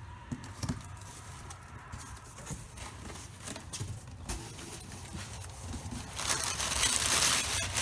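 A cardboard shipping box being handled and opened, with scattered knocks and taps. About six seconds in, loud crinkling of packing paper starts.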